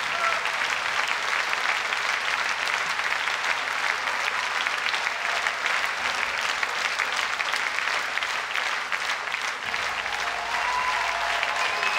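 Concert audience applauding, a steady wash of many hands clapping.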